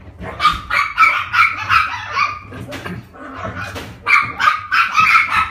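A puppy yapping: a quick run of short, high-pitched barks, a quieter stretch about two seconds in, then another quick run near the end.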